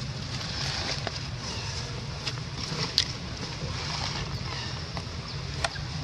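Steady low rumble and hiss of outdoor background noise, with a few sharp clicks, the loudest about three seconds in and another near the end.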